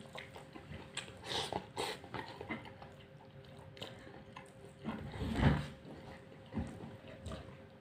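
Close-up chewing and mouth sounds of a man eating chicken biryani by hand: soft wet smacks and small clicks, with a louder, lower chew or swallow about five seconds in.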